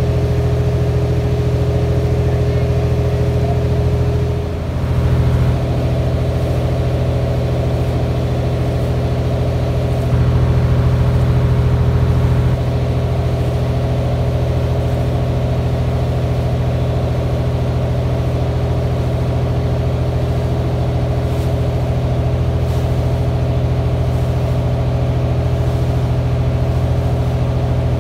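Boat engine running steadily under way, a low drone heard from on board, dipping briefly about four seconds in and a little louder for a couple of seconds around ten seconds in.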